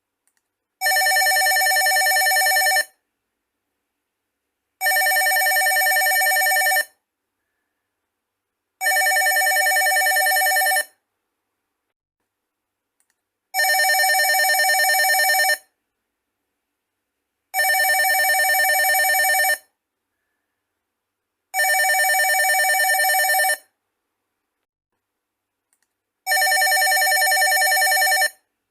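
Old landline office telephone ringing: seven rings of about two seconds each, with about two seconds of silence between them.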